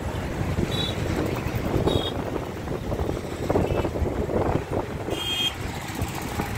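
Riding in an auto-rickshaw through city traffic: a steady rumble of engine and road noise with wind buffeting the microphone, and three short high beeps.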